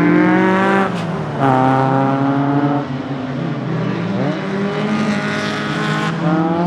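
Car engine revving hard on track, its pitch dropping and climbing again several times as the throttle is worked.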